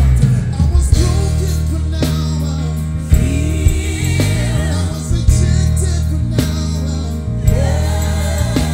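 Live gospel band playing, with a loud electric bass line, drum hits and voices singing.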